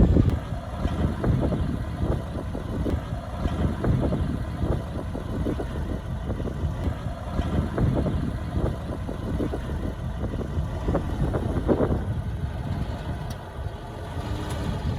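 Heavy construction machine's diesel engine running steadily at a low rumble, with frequent short, irregular clanks.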